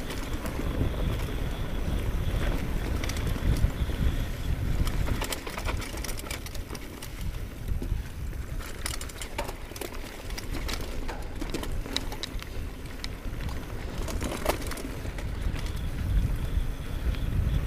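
Wind buffeting the microphone and tyres rolling over a dirt trail on a hardtail mountain bike, with scattered clicks and rattles from the bike over the rough ground.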